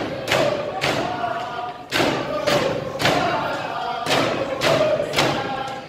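Iñupiaq frame drums struck in unison, a steady beat of about two strokes a second, with a group of singers chanting over them.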